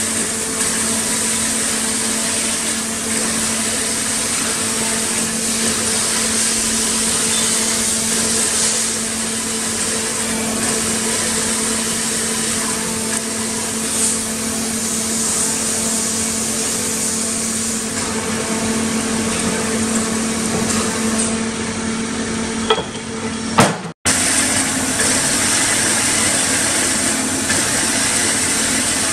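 JAESPA horizontal band saw running unloaded: its electric motor and hydraulics give a steady hum with a constant low tone and a hiss. The sound cuts out for an instant about four-fifths of the way through, then the same hum carries on.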